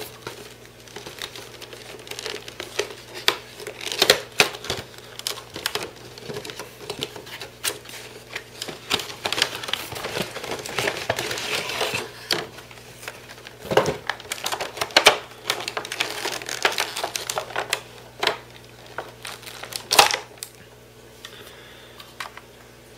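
Cardboard box and clear plastic packaging being opened and handled: plastic crinkling with many scattered clicks and taps, and a denser stretch of crinkling about halfway through.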